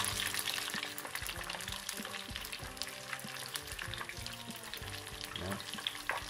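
Breaded chicken drumsticks deep-frying in hot oil in a small saucepan: a steady sizzle full of small crackles and pops.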